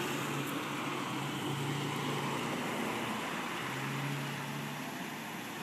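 Ford F-150 pickup driving away, its engine running with a steady low hum that eases slightly toward the end as the truck moves off.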